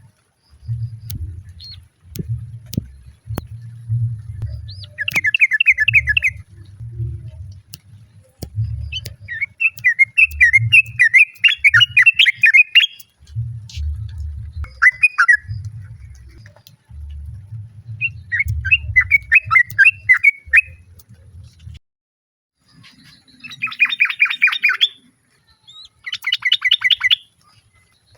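Yellow-vented bulbul (trucuk) giving bursts of rapid, bubbly chattering calls, about six phrases with pauses between them. A low, muffled pulsing sits underneath and stops about two-thirds of the way through.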